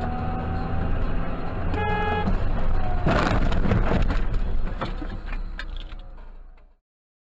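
Vehicle running on a wet road, heard from the cab with a steady low engine drone. A short horn toot comes about two seconds in. Then a loud rushing, rattling noise lasts about two seconds while passing close alongside a truck, then fades and cuts off near the end.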